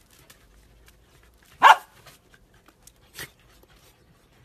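A corgi gives one sharp, loud bark about a second and a half in. A fainter, higher short sound follows about a second and a half later.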